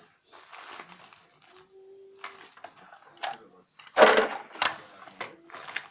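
Plastic toy trucks being handled and moved about, with short scrapes and knocks and one louder clatter about four seconds in.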